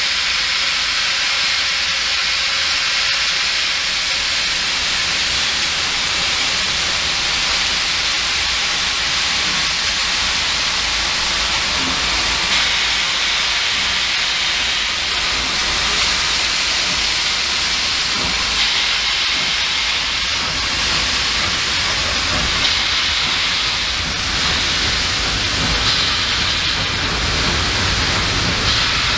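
Steady hiss of steam from the Victorian Railways R class steam locomotives at the head of the train, with a low rumble of heritage carriages rolling slowly past that grows stronger in the second half.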